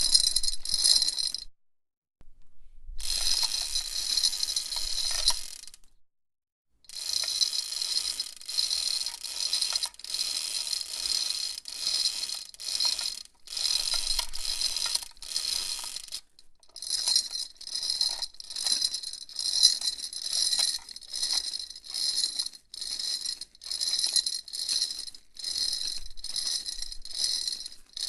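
Chain hoist in use: the metal chain rattles as it runs through the chain block, in spells of a few seconds with brief pauses. In the later part the rattle comes in even pulses, about two a second.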